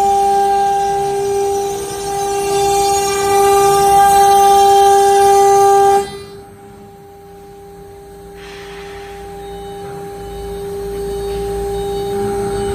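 CNC router spindle running with a steady high whine, with a louder rushing noise over it. About six seconds in the rushing noise cuts off abruptly and the spindle's whine carries on more quietly.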